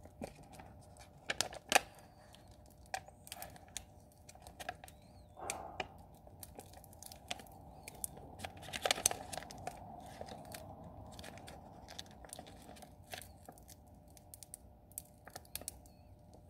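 Vinyl decal's clear transfer sheet being peeled slowly off its waxy backing paper, giving irregular crackling and ticking with paper crinkling, a few crackles louder than the rest.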